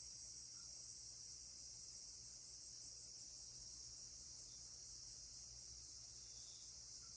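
Faint, steady high-pitched insect trilling, breaking into rapid even pulses for a few seconds, over a low steady hum.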